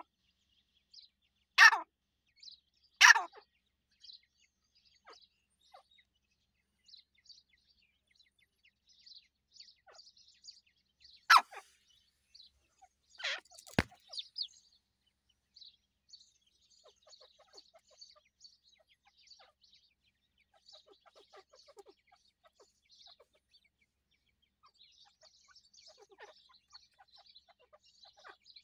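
Grey francolin chicks peeping faintly and almost without a break, with a few loud short barks from a dog, two near the start and one about 11 seconds in, and a sharp knock a little later.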